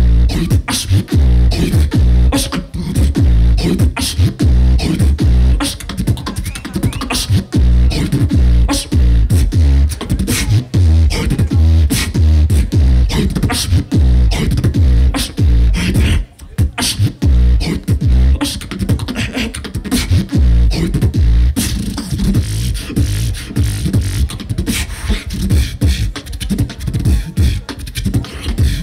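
Solo live beatboxing through a stage PA: deep bass kicks with sharp snare and hi-hat clicks in a fast, dense beat. It drops out for a moment about sixteen seconds in.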